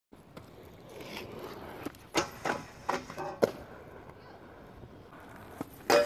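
Aggressive inline skates rolling and clacking on street pavement, a handful of sharp clacks about two to three seconds in. Near the end comes a loud hit as the skates land on the metal handrail to start a grind.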